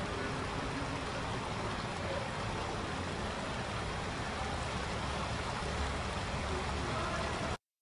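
Steady, even rushing background noise with no clear tones, which cuts off suddenly near the end.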